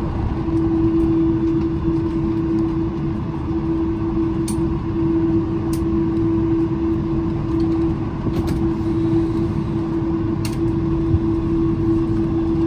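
Jet airliner cabin noise heard from inside the passenger cabin: a steady engine rumble with a constant hum, and a few faint clicks.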